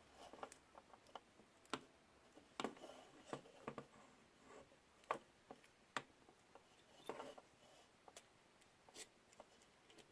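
Faint, irregular small clicks and taps of hands working on a DJI Phantom 3 Pro gimbal camera while fitting its ribbon cable, about ten light knocks scattered over the stretch.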